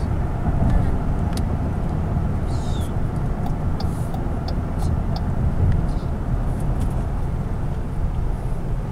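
Steady low road and engine rumble of a car cruising on a freeway, heard from inside the cabin, with a few faint ticks about halfway through.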